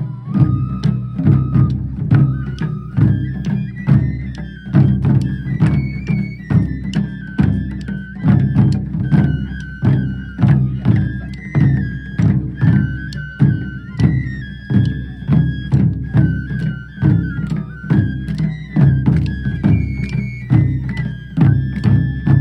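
Taiko drums played in a driving, steady rhythm, with dense strokes and loud accents about once a second. A high, sustained melody line moves in steps over the drumming throughout.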